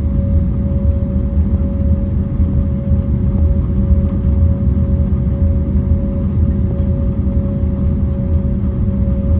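Airbus A321neo cabin noise while taxiing after landing: a steady low rumble of the idling engines and airframe, with a constant hum above it.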